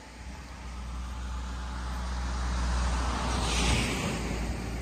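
A car driving past: engine rumble and tyre noise grow louder to a peak about three and a half seconds in, then begin to fade.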